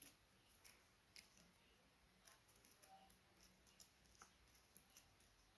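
Near silence: low hiss with faint, irregular small clicks scattered through it.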